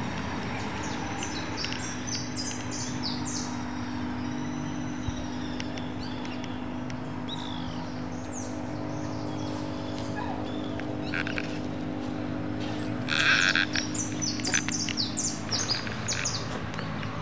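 Small birds chirping in runs of short, quick high notes, near the start and again in the second half, over a steady low hum. A brief louder burst comes about thirteen seconds in.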